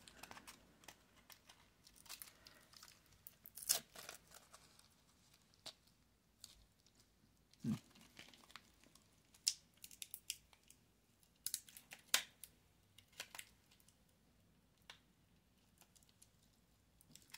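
Plastic packaging film being torn and crinkled by hand: faint scattered crackles with a few sharper tearing bursts.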